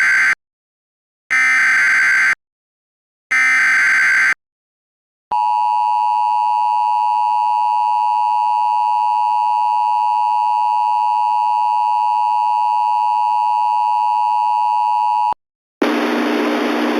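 Emergency Alert System alert signal: three short screeching data bursts (the SAME header), a pause, then the steady two-tone EAS attention signal held for about ten seconds before it cuts off. Near the end a hissy, radio-sounding audio feed starts, ahead of the spoken warning.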